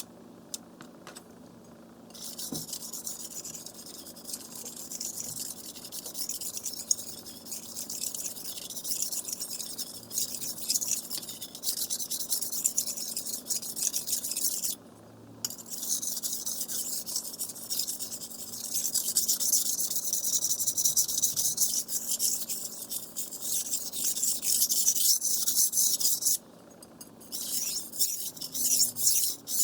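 A steel knife blade being drawn across a wet water whetstone by hand, a continuous rasping scrape. It starts about two seconds in, breaks off briefly midway and again near the end, and then resumes in shorter strokes.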